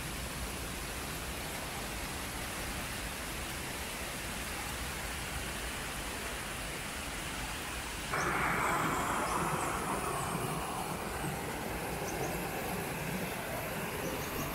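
Steady rushing of flowing water, even and without rhythm. About eight seconds in it changes abruptly to a louder, fuller rush.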